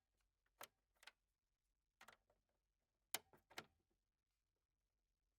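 A computer cable's plug clicking and knocking against a port as it is pushed in: short, sharp clicks in small clusters over the first four seconds, the loudest a little after three seconds in.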